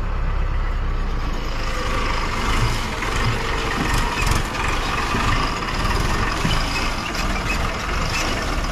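Diesel farm tractor engine running steadily.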